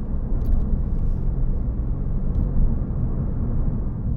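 Steady low road and engine rumble inside the cabin of a Toyota Yaris GR Sport at speed, the tyre and wind noise heard by the occupants.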